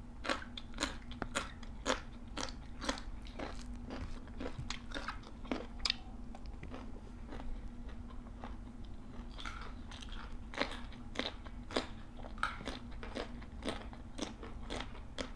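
Close crunching and chewing of raw long green beans and other fresh vegetables, many irregular crisp bites and snaps.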